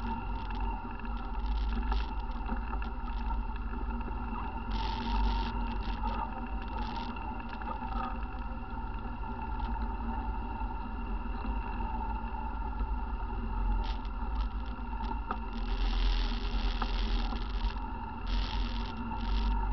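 ATV engine running steadily during a trail ride, a constant drone with a low rumble underneath. A few short bursts of hiss come about five seconds in and again near the end.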